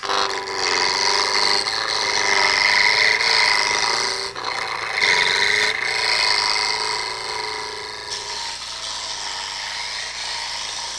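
Rough-out gouge cutting a spinning wood spindle blank on a mini lathe: a steady rasping cut as the blank is roughed from square toward round. The cut breaks off briefly twice around the middle and is lighter near the end.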